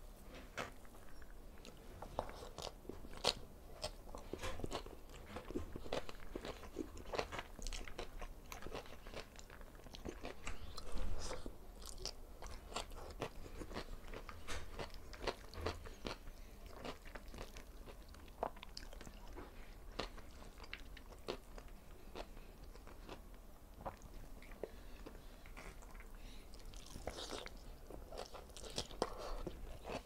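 Close-miked chewing and biting of a meal of fried tilapia, string bean adobo with liver and rice, with many short crisp crunches and crackles.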